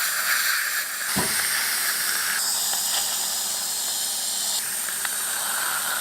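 Steady hiss of dental equipment working in the mouth: suction and the laser handpiece's water spray. Its tone changes abruptly about two and a half seconds in and again later.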